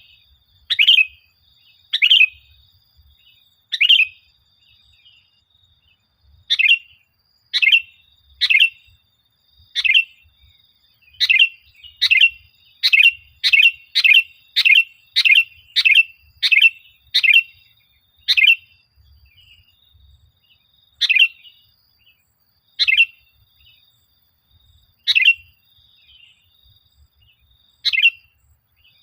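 Sooty-headed bulbul (kutilang) calling: short, sharp chirps repeated at uneven intervals, bunching into a quick run of about one and a half a second through the middle, then spacing out again.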